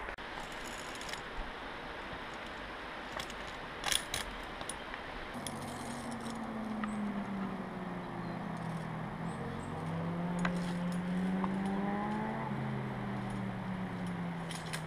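Via ferrata gear jangling and clinking, carabiners and metal hardware on a harness, with footsteps on loose rock. From about five seconds in, an engine hum rises and falls in pitch underneath.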